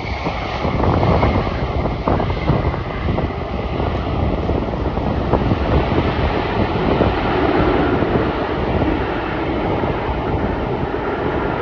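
Jet engines of a Ryanair Boeing 737 running during its landing rollout, with a faint high whine in the first few seconds. Gusty wind buffets the microphone as a heavy, uneven rumble throughout.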